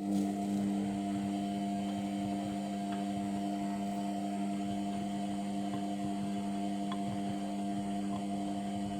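Indesit washing machine running mid-cycle with an overloaded drum, giving a steady electric hum that starts abruptly and drops away near the end.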